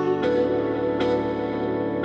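Background instrumental music: sustained chords with new notes coming in twice.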